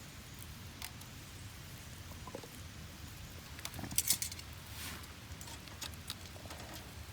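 Dry kindling crackling and snapping in scattered small clicks, with a louder cluster of snaps about four seconds in.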